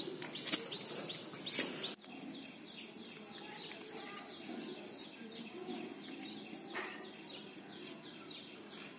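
Small birds chirping in quick, repeated short falling notes in the background. During the first two seconds, a few short clicks and scuffs are louder than the birds, and they stop abruptly at a cut.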